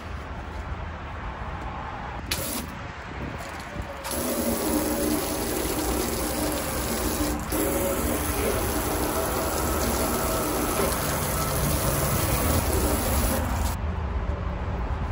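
Water from a garden-hose spray nozzle hissing onto a metal road sign, starting about four seconds in and cutting off abruptly near the end, after a short burst a couple of seconds in. Before the spray, a hand scrubs the sign's face with a scrub pad.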